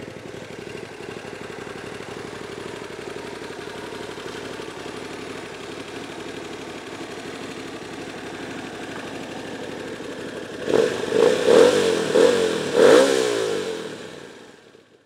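Hyosung GT250R's 250 cc V-twin idling steadily through a Two Brothers aftermarket slip-on exhaust. Near the end it is revved in four quick blips, then the sound fades out.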